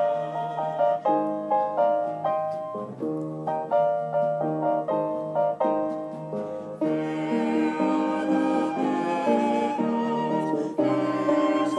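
A hymn played by piano and flute. For about seven seconds the piano's separate struck notes lead, then held, wavering melody notes join over it and the sound fills out.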